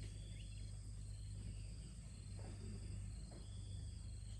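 Insects chirping in a short, repeating pattern over a steady low hum, with a couple of faint soft taps.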